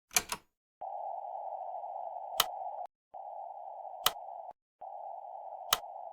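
Stretches of narrow hiss, each a second or two long with short breaks between, with a sharp click about every second and a half. This is not keyed Morse: there are no short and long tones.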